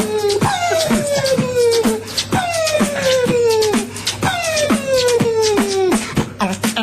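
A person beatboxing: a hummed tone that slides slowly down in pitch, repeated about every two seconds, over a running pattern of sharp mouth-made clicks and hits.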